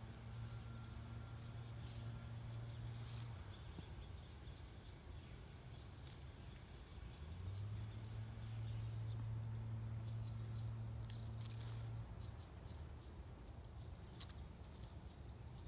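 Faint outdoor ambience: a low hum twice rises in pitch and holds for several seconds before cutting off, with scattered high chirps and small ticks.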